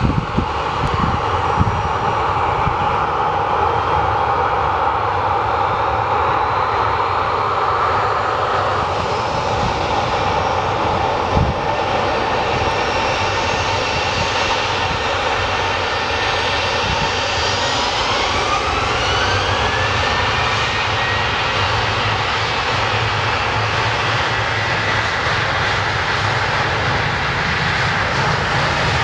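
Boeing 737-800's CFM56-7B turbofan engines running steadily as the jet moves onto the runway, then spooling up with a rising whine about two-thirds of the way through and holding a higher steady whine as takeoff thrust is set.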